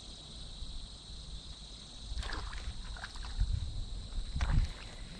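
A spinning rod and reel being worked as a small sunfish is reeled in: a faint steady hiss, then from about two seconds in irregular low thumps and rustles of handling with a few light clicks, loudest near the end.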